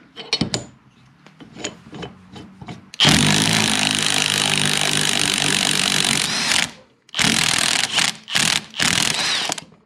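Cordless impact wrench driving the screw of a tie rod puller to pull a seized alternator rotor's shaft out of its bearing. It starts about three seconds in with one long run of some three and a half seconds, then gives several shorter bursts. Before it, light metal clicks as the puller is set on the shaft.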